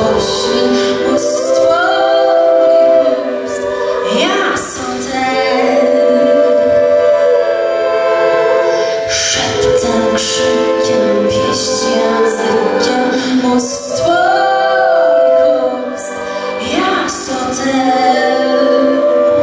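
Live folk-pop band playing: a woman sings with backing voices over accordions, bass guitar and acoustic guitar.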